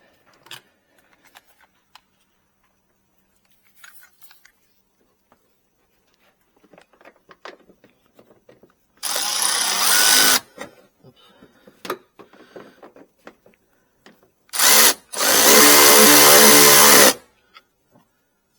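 Cordless drill/driver running screws in three short runs: one about nine seconds in, then a brief one and a longer one near the end. Small clicks and handling knocks between them.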